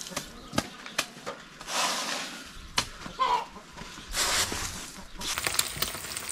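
Broom swept in strokes over a dry dirt path, a swish about every two seconds, with a few sharp knocks in between and a chicken clucking briefly about three seconds in. Near the end, sucuk and eggs start sizzling as they fry in a pan.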